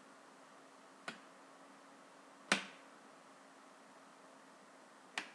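Hard plastic Lego parts clicking and knocking as the folding stock of a Lego toy shotgun is swung over and set in place: three sharp, separate clicks, the loudest about two and a half seconds in.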